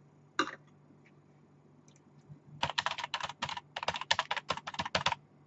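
Typing on a computer keyboard: a quick run of keystrokes lasting about two and a half seconds, with a brief pause partway through. A short noise comes just before, near the start, and a low steady hum runs underneath.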